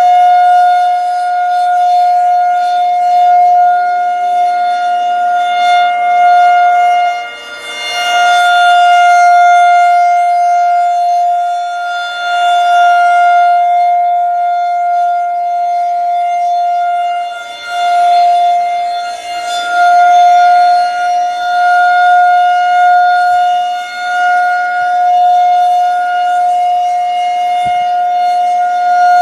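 Federal Signal 2001-130 outdoor warning siren sounding the Alert signal on a test: one loud steady tone that holds its pitch, swelling and fading every few seconds as the rotating siren head turns.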